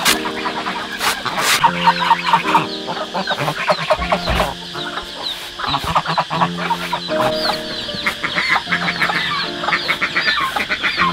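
Chickens clucking over background music of held notes that change about once a second.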